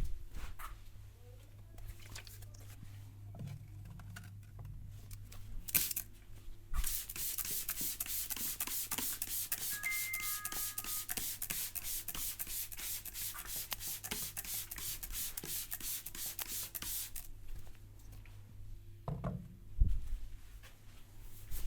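Hands rubbing briskly over hair and scalp during a head massage: fast, even rubbing strokes that start about seven seconds in and stop about ten seconds later, after a stretch of soft scattered touches.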